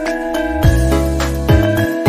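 Background music: bell-like tones over deep bass drum hits that drop in pitch, two of them.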